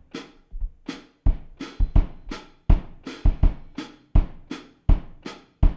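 A drum kit played solo in a plain, straight beat, the hi-hat keeping time with snare hits and low bass drum thumps, about three strokes a second.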